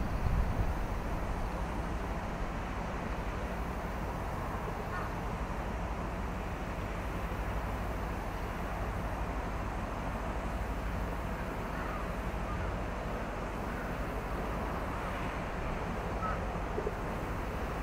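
Steady low rumble of harbour ambience, with a few faint, scattered bird calls; a brief gust buffets the microphone right at the start.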